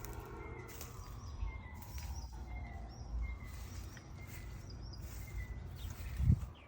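Outdoor ambience with small birds chirping in short repeated calls over a low rumble of wind and handling on the microphone, and a single dull thump near the end.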